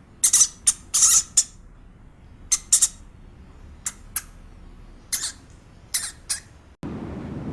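A small animal giving short, high-pitched calls, about a dozen in irregular clusters. Near the end they give way to a steady low rumble.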